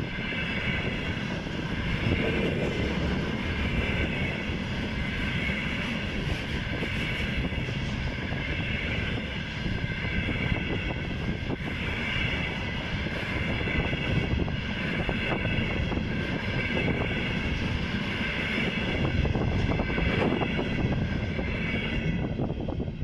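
Container freight train rolling past on the rails: steady wheel-on-rail rumble with a ringing hiss from the wheels and occasional knocks. The high part of the sound fades about a second before the end.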